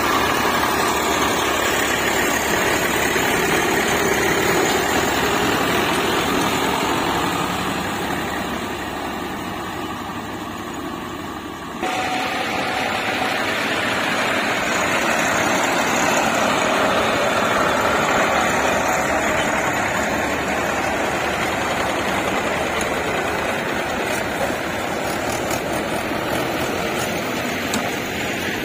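Tractor engine running steadily, with the sound dipping slightly and then jumping back up abruptly about twelve seconds in.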